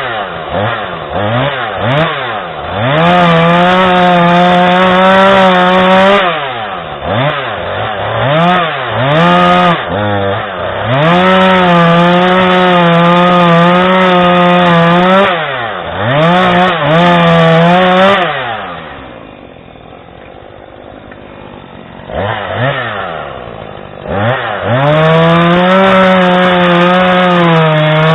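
Husqvarna 440e X-Torq 40.9 cc two-stroke chainsaw revved in quick blips, then held at full throttle for several seconds at a time while cutting wood. It drops back to idle about twenty seconds in, then revs up again.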